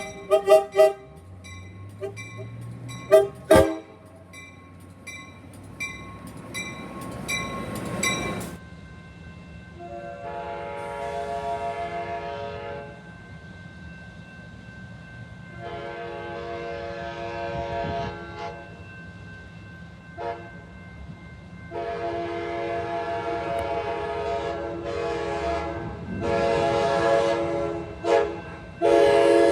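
Amtrak Surfliner cab car's multi-tone air horn sounding two long blasts, a short one and a long one, the standard grade-crossing warning, then two more blasts near the end. Before the horn, for about the first eight seconds, there is a fast repeating ringing with a few loud knocks.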